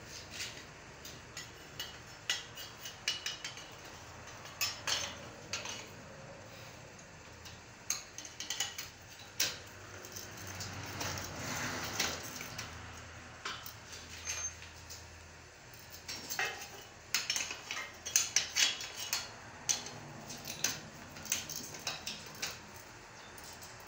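Hand tools and steel parts clinking and knocking as a steering column is fitted to a welded steel frame: irregular sharp clicks, busiest in the last third, with a longer scraping sound near the middle.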